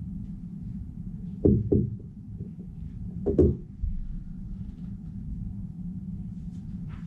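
Two pairs of dull knocks on a wooden conference table, about two seconds apart, heard loud through a camera lying on the tabletop, over a steady low room hum.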